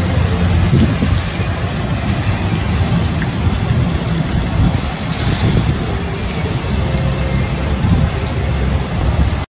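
Steady rushing and splashing water from water slides and their splash pools.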